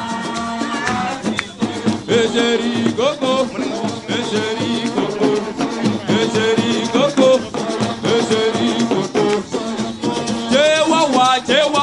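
Upbeat dance music with singing over shaker-like percussion.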